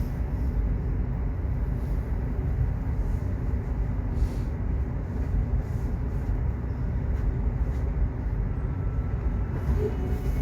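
Subway train running on the rails: a steady low rumble with faint light knocks. A few faint high tones come in near the end.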